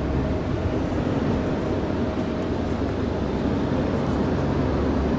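Wind buffeting the microphone outdoors: a steady low rumble, with a faint constant mechanical hum beneath it.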